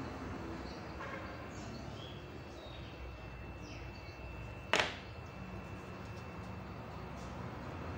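A small plastic lighter is set down on a table with one sharp click about five seconds in, over a steady low background hum.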